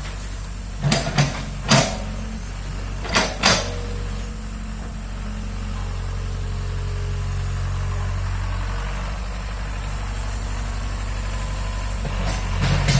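Excavator's diesel engine running steadily, with a handful of sharp knocks, two pairs in the first few seconds and more near the end.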